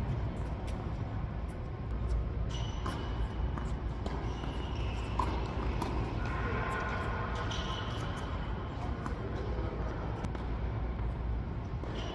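Tennis balls being struck by rackets and bouncing on an indoor hard court during a doubles rally: irregular sharp pops, over a steady low rumble in the hall.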